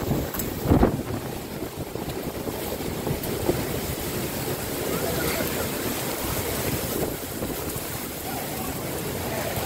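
Heavy storm rain and wind pouring down steadily, with a brief loud gust or bump about a second in.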